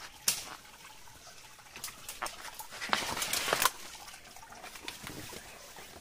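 Footsteps and rustling through leaf litter, twigs and rocks on a forest gully floor: scattered snaps and crunches, with a louder brushing rustle about three seconds in.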